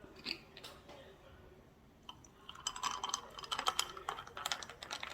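A quick run of light clicks and crackles from handling food at the table, starting about two and a half seconds in.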